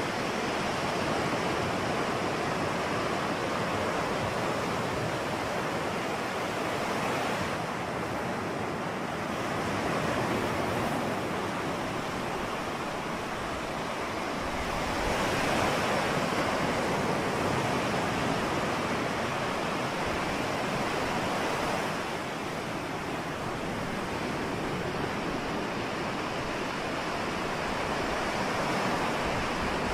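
Ocean surf: a continuous rushing wash of waves that swells and eases slowly, loudest for several seconds around the middle.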